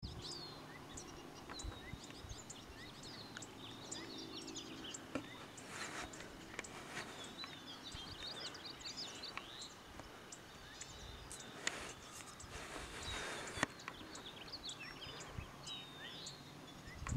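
Faint chirping and twittering of several songbirds, the calls overlapping. There are a few sharp clicks and a couple of short rushes of noise near the middle.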